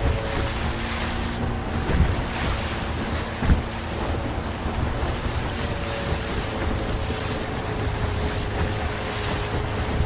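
Tohatsu 9.8 hp two-stroke outboard running steadily under power through whitewater rapids, over loud rushing water and wind buffeting the microphone. Two short thumps about two and three and a half seconds in.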